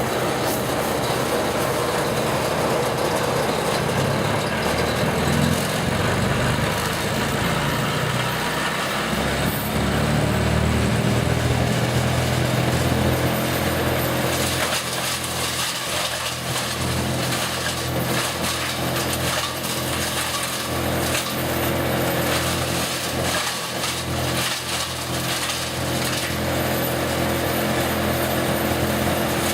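Engine-driven brush chipper running steadily while brush is fed in and chipped, the engine tone constant under the grinding and crunching of the wood.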